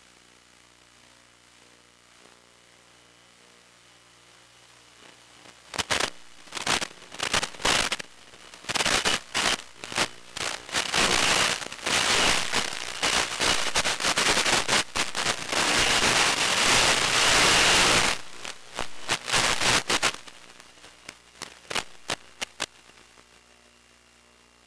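Static from an analog 1.3 GHz FPV video receiver as the radio link breaks up: faint hiss, then a run of sharp crackles that thickens into a solid rush of static for several seconds and thins back to scattered crackles and hiss.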